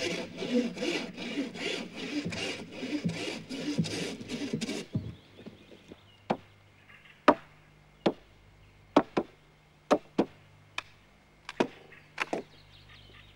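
Handsaw cutting through a log in quick back-and-forth strokes, about three a second, that stop abruptly about five seconds in. After that, a series of sharp, irregularly spaced axe blows on wood.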